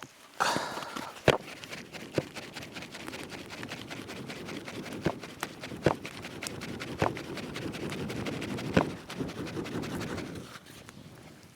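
Continuous scratching and rustling for about ten seconds, with sharp clicks and snaps scattered through it, loudest near the start.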